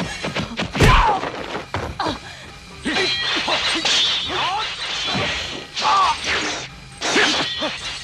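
Kung fu film fight sound effects: a heavy impact about a second in, then a run of hits and blade clashes with short metallic ringing, swishes and fighters' shouts and grunts, over a music score.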